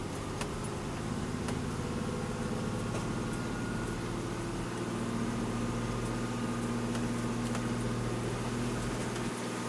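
Volvo VM truck's diesel engine running at a steady drone inside the cab while driving, with a few faint clicks and rattles.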